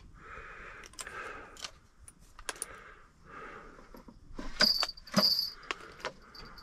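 Small metal fishing lures clicking and clinking against each other and the plastic of a tackle box as they are picked through by hand, with two louder ringing metallic clinks about four and a half and five seconds in. Heavy breathing sounds between the clicks.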